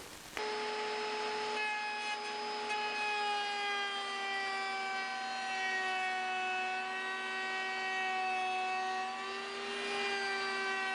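Table-mounted router with a flush trim bit running at speed, a steady high whine whose pitch sags and recovers slightly as it trims Masonite skin flush with plywood.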